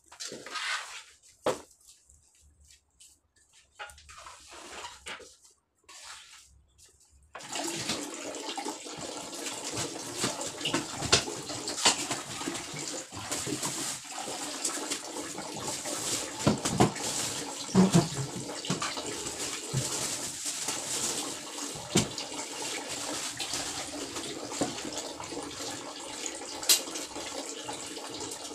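A few faint knocks of hands working wet cement mortar in a plastic bucket, then about seven seconds in running water starts suddenly and keeps on steadily, with scattered knocks and clicks over it.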